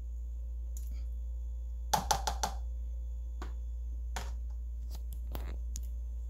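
Metal kitchen tongs clicking and tapping against a plastic container while fish chunks are dredged in a dry breading mix: a quick cluster of taps about two seconds in, then scattered single clicks, over a steady low hum.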